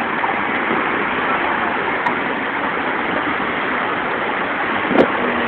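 Steady rushing noise of a car driving in slow traffic, heard from inside the cabin.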